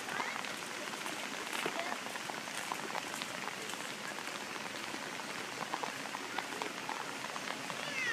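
Steady rain falling, with many small drop ticks scattered through the hiss.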